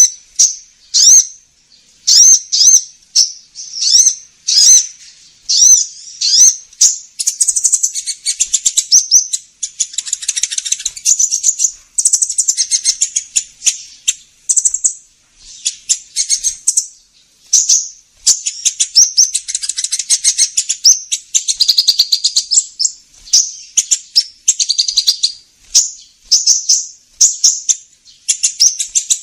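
Kolibri ninja sunbird calling, a lure recording of high-pitched chirps. Short separate notes alternate with fast, dense twittering runs.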